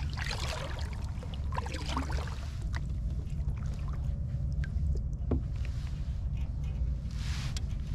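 Kayak paddle strokes splashing in the water, with a splash about seven seconds in, over a steady low rumble.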